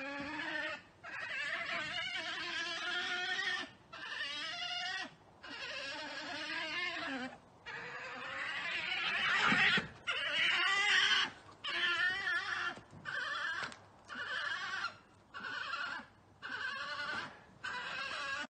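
European badgers fighting, giving a run of about a dozen wavering squealing calls, each a second or two long, with short breaks between them.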